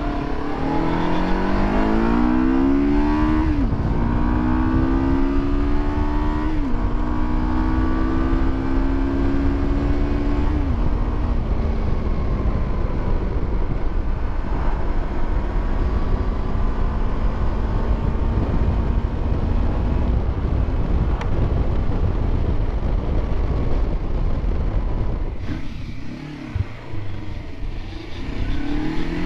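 Motorcycle engine accelerating up through the gears: the pitch rises, then drops at each of three upshifts in the first ten seconds. It then settles into a steady cruise under wind rush on the helmet-mounted camera. Near the end the engine eases off and then begins pulling again.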